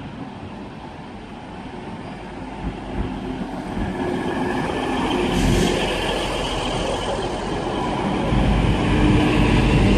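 Class 185 diesel multiple unit arriving at the platform, its engines and running gear growing steadily louder as it draws in. A thin, steady high whine joins about four seconds in.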